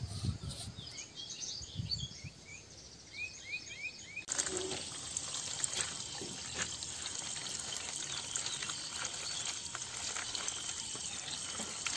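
Water pouring and splashing steadily over a large whole fish as it is rinsed by hand. It starts suddenly about four seconds in; before that there are a few quick bird chirps.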